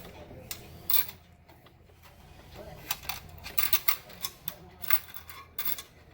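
Quarters clinking and chinking as coins are handled from a candy vending machine's collection: an irregular scatter of sharp metallic clicks, thickest in the second half.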